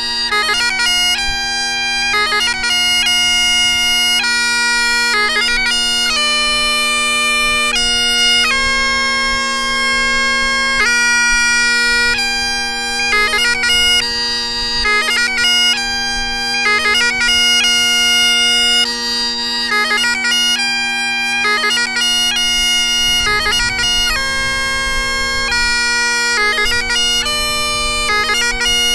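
Great Highland bagpipe playing pìobaireachd: a slow chanter melody of long-held notes, each change marked by quick gracenote flourishes, over the steady hum of the drones.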